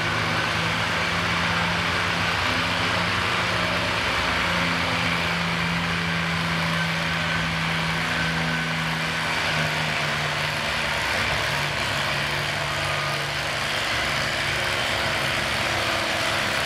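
Massey-Harris tractor engine running steadily under load while pulling a weight-transfer sled, its note dipping slightly in pitch about ten seconds in.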